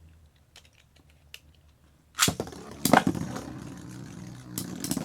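Two Metal Fight Beyblade tops, Lightning L-Drago and Ray Striker, launched into a plastic stadium about two seconds in. A sharp clash follows, then a steady whirring and scraping as they spin on the stadium floor, with more metal-on-metal hits near the end.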